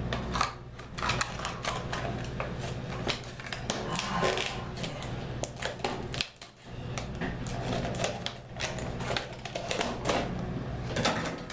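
Plastic packaging crinkling and rustling close to the microphone as a product is unwrapped: a dense, irregular run of crackles and clicks.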